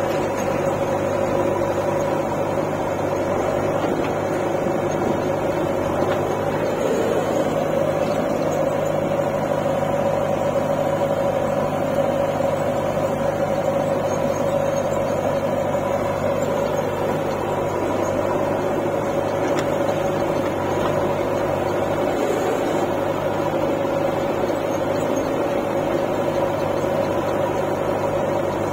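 Diesel engines of a JCB 3DX backhoe loader and a John Deere 5045D tractor idling steadily, with an even hum and no revving.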